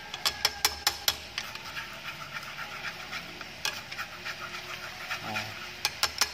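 Thick chili-and-honey sauce bubbling at the boil in a nonstick frying pan while wooden chopsticks stir it. A run of sharp clicks comes in the first second, and a few more come near the end.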